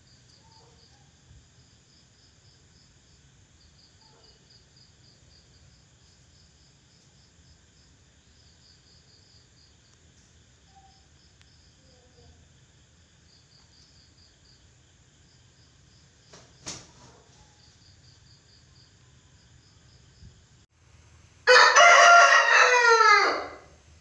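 A white Aseel rooster crows once near the end, a loud call of about two seconds that drops in pitch as it trails off. Before it, faint insect chirping pulses in the background.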